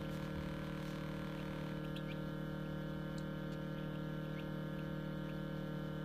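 Steady hum of an egg incubator running, with a few faint, short high peeps from newly hatched quail chicks after about two seconds.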